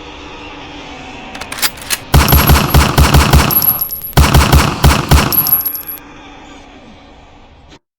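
Two bursts of rapid automatic gunfire, several shots a second, the first starting about two seconds in and the second just after four seconds.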